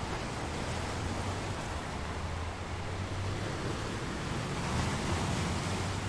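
Ocean surf: a steady rush of breaking waves with wind, swelling louder near the end as a bigger wave comes in.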